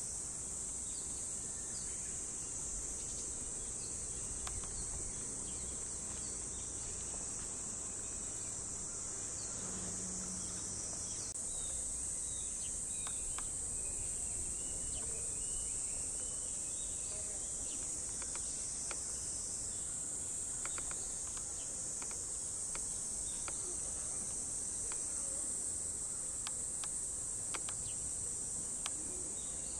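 A chorus of cicadas singing in a steady, high-pitched buzz, with a few faint clicks in the second half.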